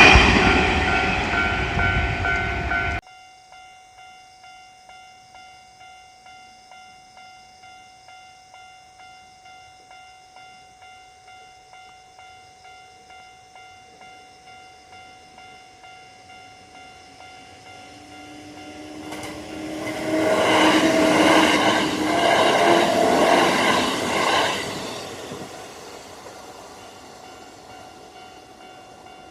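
Japanese railroad crossing's electronic bell ringing steadily at an even pace while Kintetsu trains pass. One train is passing loudly at the start and cuts off suddenly after about three seconds. Another builds up about two-thirds through, runs past loudly for several seconds, then fades.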